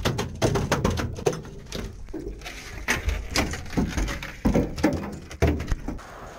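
Irregular knocks and clatter on a fishing boat's metal deck, with a few heavier low thuds in the second half.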